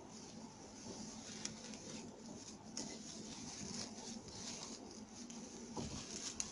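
Gloved hands kneading sliced lemons with sugar in a ceramic bowl: faint wet squishing and gritty rustling with scattered small clicks, as the sugar draws the juice out of the lemon slices. A soft knock comes near the end.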